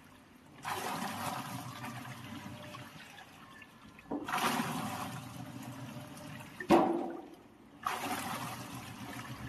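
Washing machine in its wash cycle, churning the water in the tub in turns, each turn starting a surge of sloshing water, three in all, with a short knock partway through. The forward and reverse wash action is working normally with a new water level sensor fitted.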